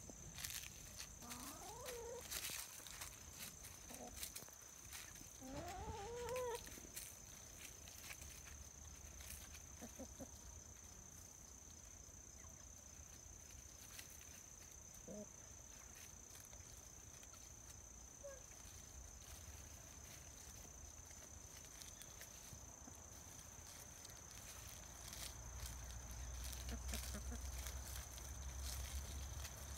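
Backyard hens making soft calls now and then, with two rising calls in the first few seconds and a few short, faint clucks later. A faint steady high tone runs underneath, and a low rumble comes in near the end.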